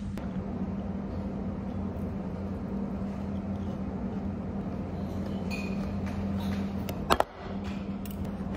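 Steady low hum of a ship's machinery in the mess room, with one sharp clink or knock about seven seconds in.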